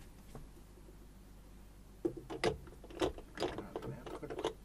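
Irregular clicking and knocking of drum-rack hardware as an electronic drum tom pad and its mount are handled and fitted onto the rack clamp, a dense run of clatter starting about two seconds in.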